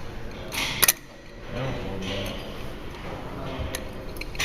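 Metal parts of an automatic transmission clutch pack clicking and clinking as they are handled, with a sharp double click about a second in and a few lighter ticks after it.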